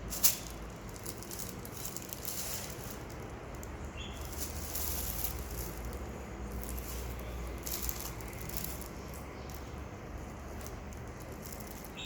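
Light, irregular scratching and rustling, with one sharp click just after the start.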